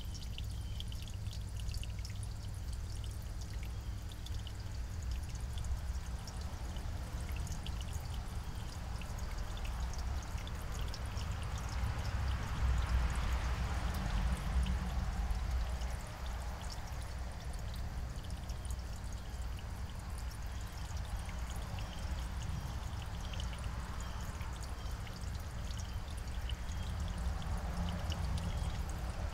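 Steady outdoor background noise: a low rumble with a hiss that swells and fades, once around the middle and again near the end.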